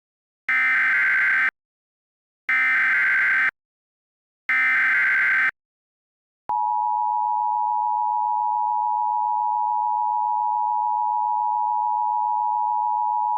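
Emergency Alert System SAME header: three one-second bursts of warbling digital data tones, about a second apart, which open an emergency alert. About halfway through, the steady EAS two-tone attention signal starts and holds.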